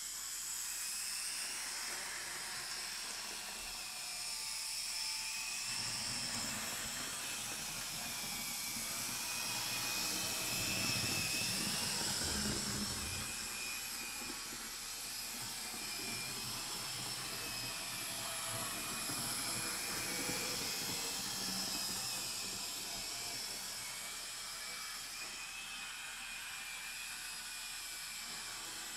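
Z-scale model train with a track-cleaning wagon running on the track: a high, wavering whine from the small electric motor, with a low rolling rumble that swells about six to fourteen seconds in.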